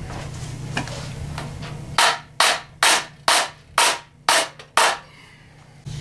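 Seven sharp hammer blows, about two a second, starting about two seconds in, with a low steady hum beneath before them.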